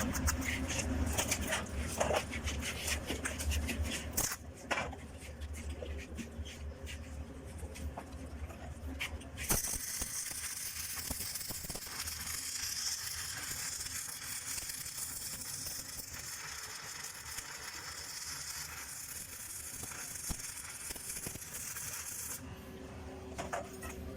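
Stick (electrode) arc welding on steel plate: a steady crackling hiss of the arc from about ten seconds in until shortly before the end. Before it there is a low hum with scattered clicks and taps.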